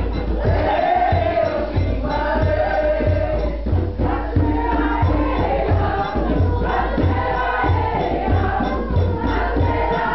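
A group of worshippers singing a bembe song for the orisha Oshun together, over a steady low drum beat of about two strokes a second.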